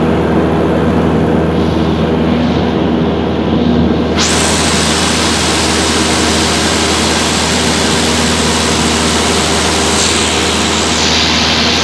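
Cabin noise of a single-engine Cessna in cruise: the engine and propeller droning steadily with a continuous rush of air. About four seconds in the sound suddenly turns brighter and hissier and stays that way.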